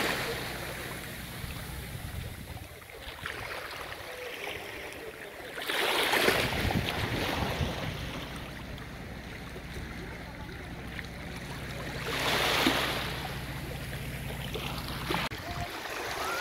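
Small sea waves washing onto the shore, swelling and falling back three times at about six-second intervals, over a low steady rumble.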